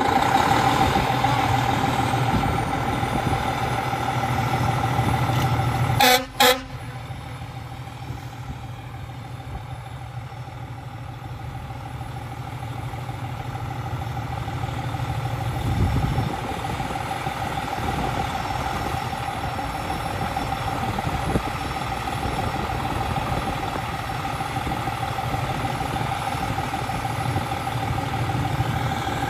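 Diesel fire truck engine idling steadily, with a constant low hum and a steady whine above it. About six seconds in come two short, loud horn blasts.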